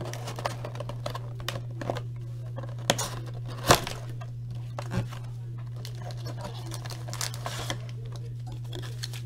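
Cardboard trading-card hobby box being torn open by hand: tearing and crinkling of the card stock with scattered sharp snaps, the loudest about a third of the way in.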